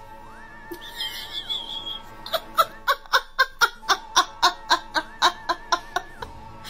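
Dubbed comic audio: wavering whistle-like tones, then from about two seconds in a rapid laugh of about fifteen 'ha' bursts, roughly four a second, lasting nearly four seconds.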